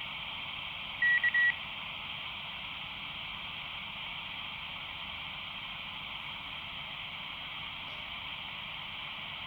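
Handheld radio's speaker receiving the Bath repeater after an access check: a few quick high beeps about a second in, then a steady hiss of the repeater's open, noisy channel, the sign that the signal is getting into the repeater.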